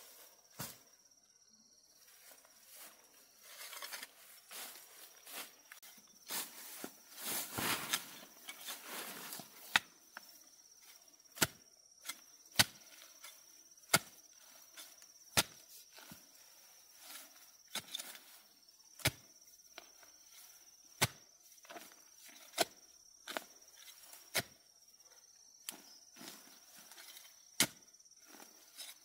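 Sharp chopping strokes, one every second or so, most distinct in the second half, with a rustling stretch before them. A faint steady insect drone runs underneath.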